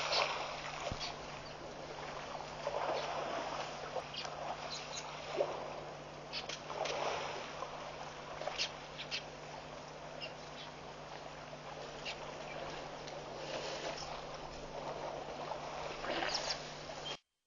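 Outdoor waterhole ambience picked up by a wildlife camera's microphone: a rushing noise that swells and fades, with scattered short high chirps and a steady low hum underneath. The sound cuts off abruptly just before the end.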